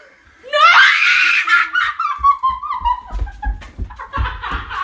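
A person laughing hard: a long, loud cry that slides down in pitch, then breaks into rapid bursts of laughter, with low thumps underneath.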